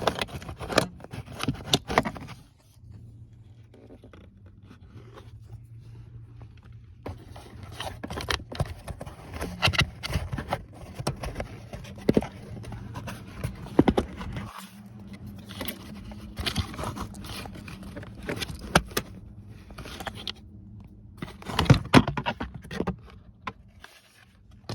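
Hands and tools working on a Honda's MICU under-dash fuse box: scattered clicks, knocks and scrapes of plastic parts, with a low steady hum underneath.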